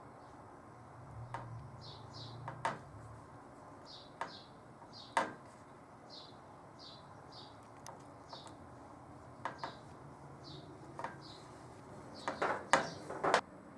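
A small bird chirping over and over in short high notes, several a second, with sharp clicks and knocks of small parts being handled; a quick run of louder knocks comes near the end.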